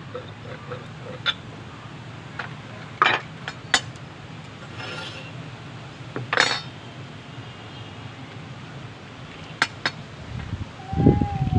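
Scattered clinks and knocks of metal tongs and a wooden rolling pin against an iron tawa and rolling board while roti is rolled and turned over a wood fire. A louder, lower sound with a gliding tone comes in near the end.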